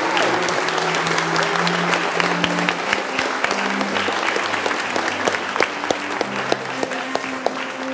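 Guests in the pews applauding, a dense steady stream of hand claps, over music with held low notes.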